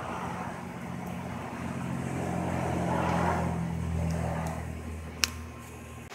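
A motor vehicle passing by, its low rumble swelling to a peak about halfway through and then fading, with a single sharp click a little after five seconds in.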